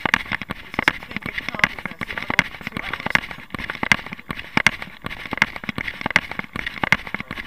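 A runner's footfalls on pavement, with the handheld camera jolting and rubbing at each stride, in a steady rhythm of about two and a half knocks a second.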